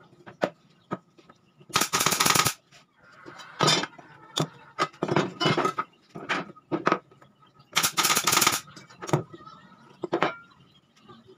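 Claw hammer knocking a glued wooden frame together: a series of sharp knocks on the wood, with two louder rapid rattling bursts under a second long, about six seconds apart.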